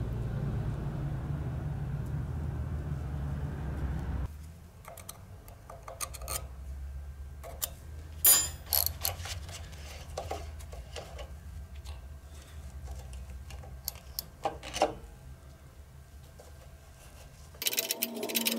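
A steady low hum that cuts off about four seconds in, then scattered metallic clinks and taps of a steel freewheel-removal tool being fitted into the slots of an old freewheel on a steel-and-aluminium bicycle hub; one clink about eight seconds in rings briefly, and a louder clatter comes near the end.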